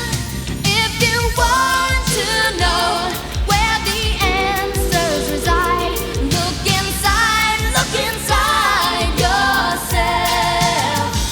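Pop song: a sung melody with wavering held notes over a steady drum beat.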